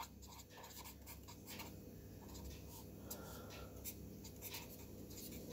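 Faint scratching of a pen writing on paper, in short strokes over the first few seconds, then only faint room tone.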